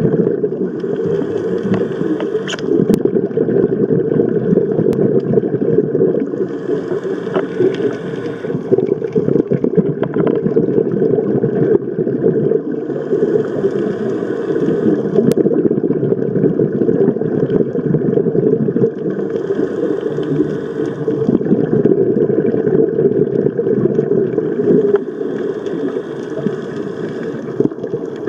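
Underwater sound picked up by a waterproof compact camera on a scuba dive: a steady low rumble of water, with a hiss that swells and fades about every six seconds, the diver's scuba regulator breathing.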